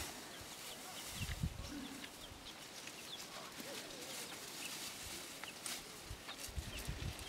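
Faint clucking of free-ranging chickens and scattered small chirps, over a rustle of dry straw being handled, with a few soft low thumps about a second in and again near the end.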